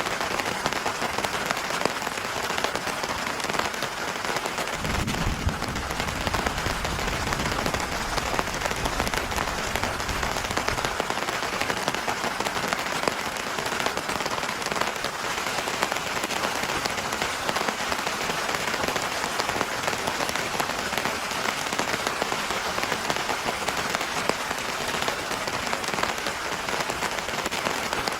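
Heavy rain falling steadily, a dense crackle of drop impacts. About five seconds in, a low rumble sets in and fades away over roughly six seconds.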